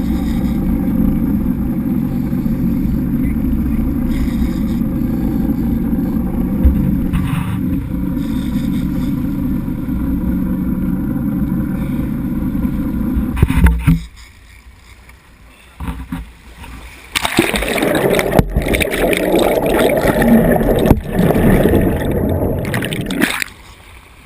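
A fishing boat's engine running with a steady low drone, which cuts off suddenly about fourteen seconds in. Later, a few seconds of loud rushing noise, like wind or water on the microphone.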